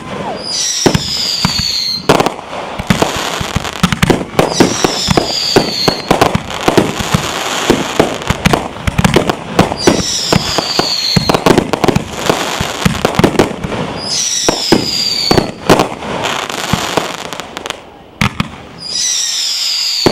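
Aerial fireworks going off in a dense string of bangs and crackles. A high whistle falling in pitch comes about every five seconds. The bangs ease briefly near the end.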